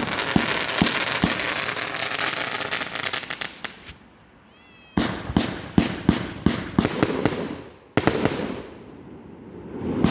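Fireworks crackling and popping: a dense crackle that fades away over the first few seconds, then after a short lull, quick strings of sharp pops that start suddenly about halfway through and again near the end.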